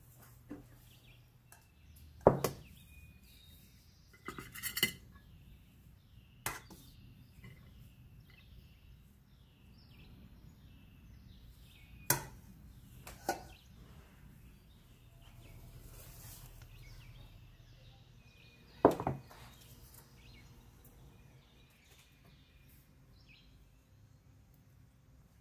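Dishes and cutlery clinking: about six separate sharp clinks of metal or ceramic, spread out, with quiet between them.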